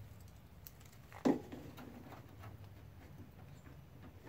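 A single short knock about a second in, with faint small clicks around it, from the half-inch nuts and washers of a snorkel mount being handled and fitted by hand behind the fender.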